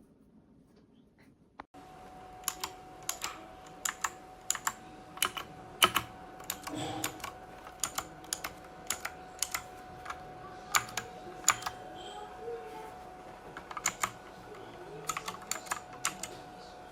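Keystrokes on a Dierya T68SE 60% mechanical keyboard with clicky blue switches, starting about two seconds in. The keys are struck one at a time at an uneven pace, with a quicker run of several near the end.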